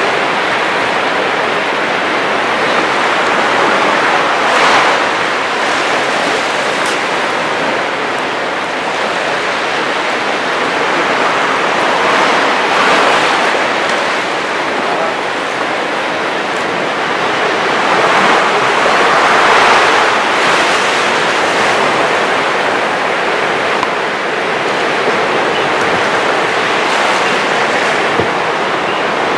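Continuous rushing water noise on a camera held at or just under the sea surface, swelling and easing several times, with no voices.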